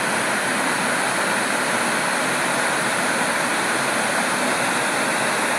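Portable Bluetooth speaker's FM radio playing loud, steady untuned static hiss, which starts and cuts off abruptly. No station comes in where the speaker is, because FM is out of range.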